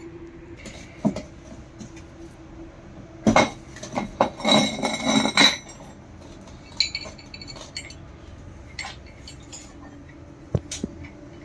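Loose metal parts clinking and knocking as they are handled on a workbench during pump disassembly: scattered single knocks, then a busy run of ringing clinks a few seconds in, and a couple of sharp knocks near the end.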